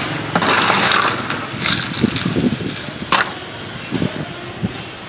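Ice being scooped from a cooler of crushed ice into a plastic cup, crunching and rattling in short bursts, with a sharp clack about three seconds in.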